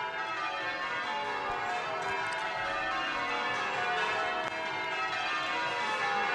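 Magdalen College tower bells being rung in changes: an unbroken, overlapping run of bell strokes.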